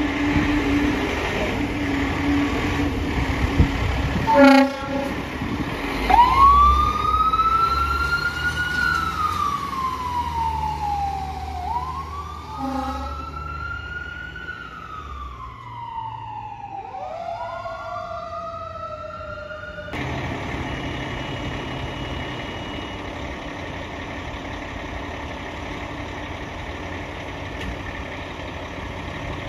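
Fire engine sounding a short air-horn blast, then its siren wailing up and down in pitch three times as it drives away, with another horn blast partway through. An abrupt cut leads to a steady engine running.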